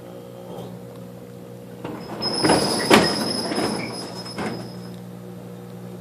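A garage door being raised, squealing and rattling for about three seconds, loudest about a second in. Under it runs the steady hum of the arcing microwave oven, still running.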